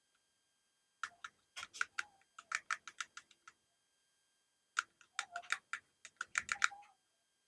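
Quick, irregular clicks and taps of small metal pocket-watch parts being handled and cleaned by hand, in two flurries with a pause between.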